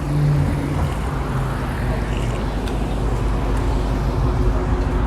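Road traffic noise: a motor vehicle's engine running with a steady low hum over the general rumble of the street.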